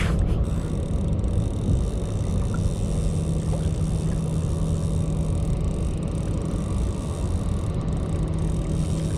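Boat engine running steadily at idle, a low even hum under a wash of wind and water noise.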